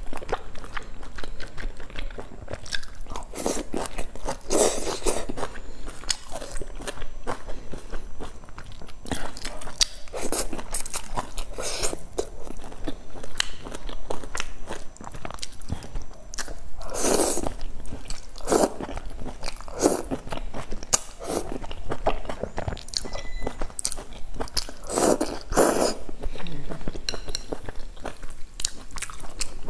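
Close-miked eating of noodles and hot-pot food: chewing, crunchy bites and wet mouth smacks at an uneven pace, with a few longer, louder slurps, picked up by a clip-on microphone at the mouth.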